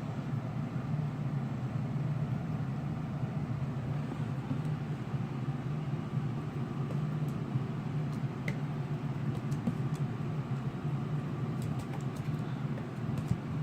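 Steady low mechanical hum, with a few faint clicks in the second half.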